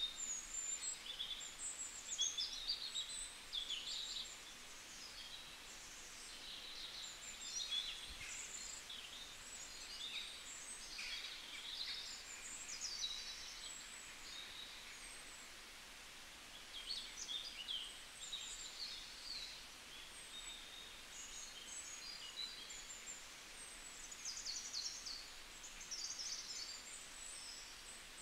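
Small birds chirping and twittering in quick flurries of short high calls, over a steady faint hiss.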